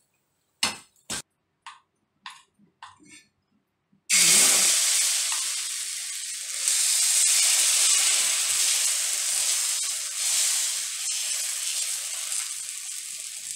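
A few short clicks and scrapes of a metal spatula on a tawa, then from about four seconds in a sudden, steady, loud sizzle: suji chilla batter frying in oil on the hot tawa while a spatula spreads it.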